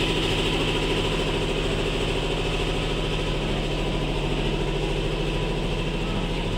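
Motorcycle engine running at a steady, even speed.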